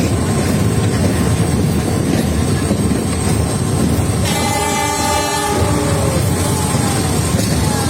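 Train horn sounding once for about a second, over a loud, steady low roar.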